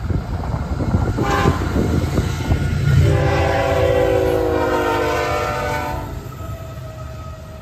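Horn of a Florida East Coast GE ES44C4 diesel locomotive sounding one long chord for about three seconds as it reaches a grade crossing, its pitch sagging slightly as it passes, over the low rumble of the engine and wheels.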